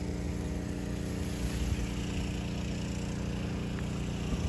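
A small engine or motor running steadily, its hum holding one constant pitch throughout.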